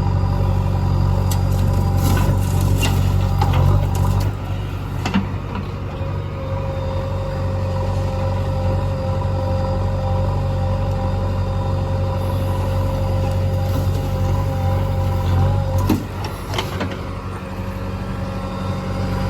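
Diesel engine of a JCB 3DX backhoe loader running steadily while it loads mud, with a steady whine over the engine hum. Knocks and clatter come in the first few seconds and again about sixteen seconds in.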